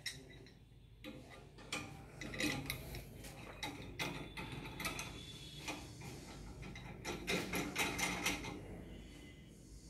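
Metal clicks and clinks of a Thompson surgical retractor frame and its clamps as a Richardson retractor blade is fitted and adjusted. The clicks come irregularly, with a denser cluster near the end.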